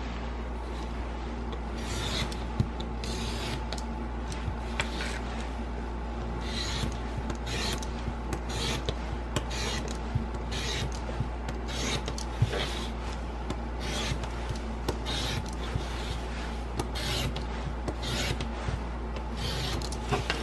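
Snap-off utility knife blade slicing through thin printed paper strips against a hard tabletop: short, scratchy cuts, irregular, about one or two a second, over a steady low hum.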